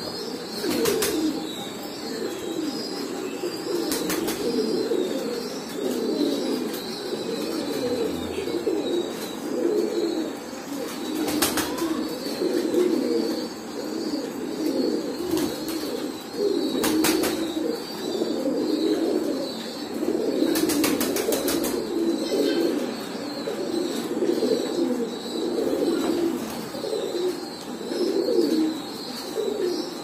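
A flock of domestic pigeons cooing continuously, many low overlapping coos, with a few sharp clicks here and there.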